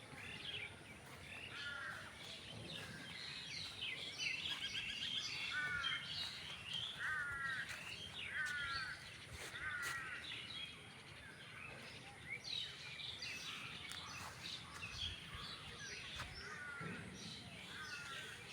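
Several birds calling and chirping, one short call repeating every second or two among many higher chirps.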